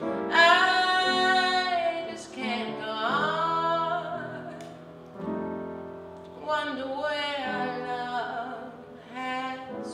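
A woman singing a slow ballad with piano accompaniment, holding long notes with vibrato across several phrases.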